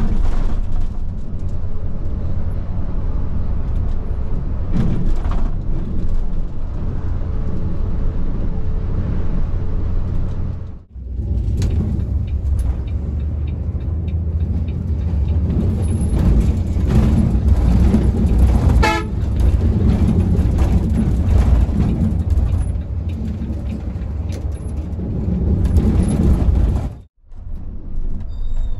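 Road traffic: vehicle engines and road rumble, with horns tooting. The sound drops out briefly twice, about a third of the way in and near the end.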